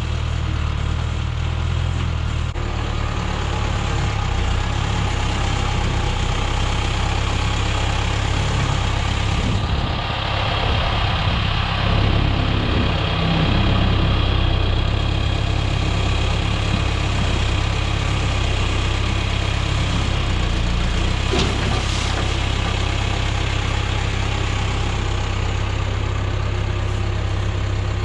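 Diesel engine of a John Deere 410B backhoe running steadily, picking up in speed and loudness for a few seconds near the middle, with one brief sharp knock later on.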